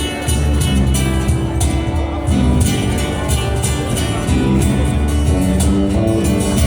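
A band playing a song, with strong bass and a steady beat.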